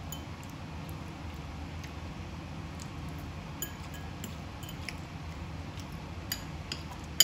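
Spoon clinking and scraping against a bowl as food is scooped, a handful of small, light clicks with one sharper clink near the end, over a steady low hum.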